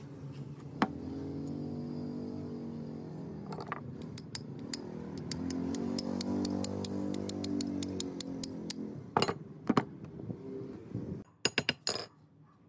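A mechanical whir whose pitch drifts slowly up and down, with a fast run of even clicks over its middle, then a few sharp metallic knocks and clinks near the end.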